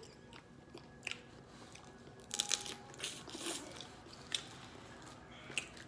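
A few short bursts of crunching and cracking from crawfish and snow crab shells, with scattered sharp clicks; the loudest burst comes about two and a half seconds in.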